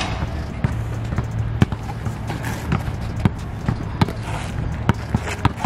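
Basketball being dribbled on a plastic sport-tile court: sharp, uneven bounces about once a second, over background music.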